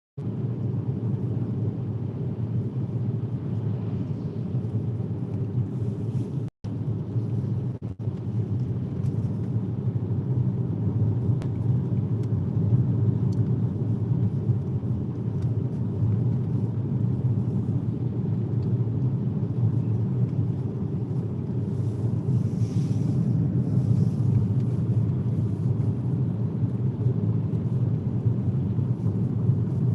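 Steady low rumble of a car driving at highway speed, heard from inside the cabin: tyre and road noise with the engine underneath. The sound cuts out briefly twice, about six and a half and eight seconds in.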